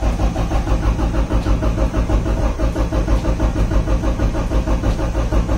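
Honda H22 four-cylinder engine cranked over on the starter without firing, priming it after a cylinder head swap. It makes an even, quick pulsing from the compression strokes and does not catch.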